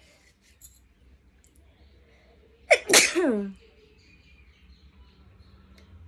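A woman sneezes once, about three seconds in: a sudden loud sneeze whose pitch falls away as it ends, set off by sneezing powder snuffed up her nose.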